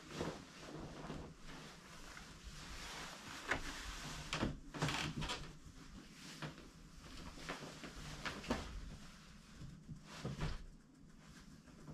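Bedding being handled and spread over a mattress: fabric rustling and a puffy comforter swishing, with several soft thumps and knocks along the way.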